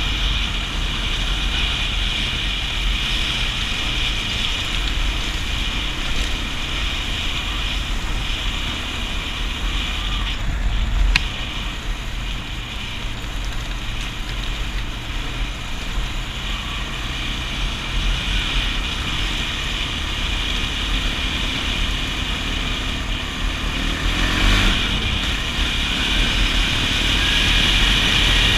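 Kawasaki KFX400 ATV's single-cylinder four-stroke engine running on a dirt trail ride, under a steady loud hiss. There is one sharp click about a third of the way through, and the engine note climbs briefly near the end as the revs rise.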